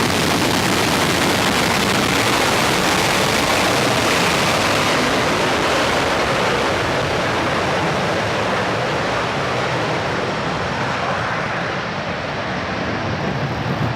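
Jet engine of a jet-powered truck, a loud steady rushing roar whose highest hiss thins out and level eases slightly in the last few seconds.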